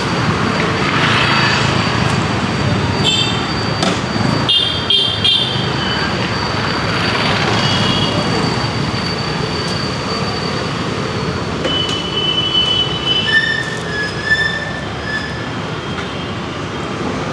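Busy street traffic running steadily, with short vehicle horn toots several times along the way.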